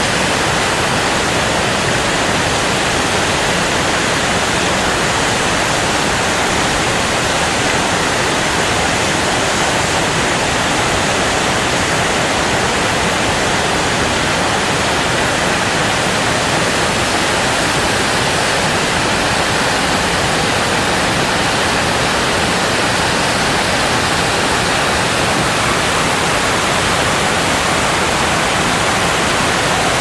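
Rinka waterfall, a tall plume of water falling down a rock cliff: a loud, steady rush of water that does not change.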